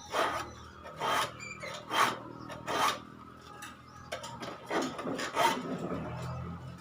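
Steel file rasping across the teeth of a hand saw in separate strokes, sharpening the blunt teeth: four strokes about a second apart, then a quicker run of strokes a little later.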